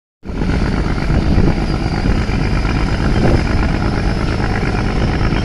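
Express passenger boat's engine running steadily under power as the boat pulls away, with a continuous rushing noise over it. The sound cuts in suddenly just after the start.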